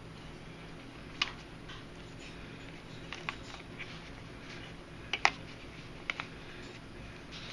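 Nylon paracord being handled and pulled tight while a bracelet is tied on a jig: scattered soft rubbing and a few sharp clicks, the loudest a quick double click about five seconds in, over a low steady hum.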